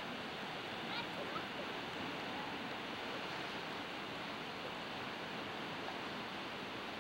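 Steady rushing noise of sea surf and wind, with a brief faint higher call about a second in.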